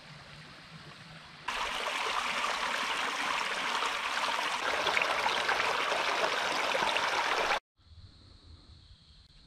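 A small woodland stream splashes over rocks in a shallow riffle, a steady loud rush of water. It starts abruptly about one and a half seconds in and cuts off suddenly near the end. A quiet scene with a faint, steady high-pitched hum follows.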